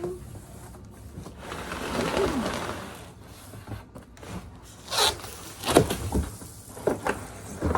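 A drawn-out scraping, rustling sound, then several sharp knocks and clatters: objects being handled and set down.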